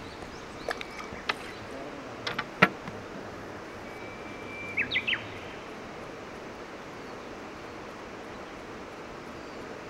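Outdoor lakeside ambience: a steady background hiss, a few light clicks in the first three seconds, and a short bird call about five seconds in.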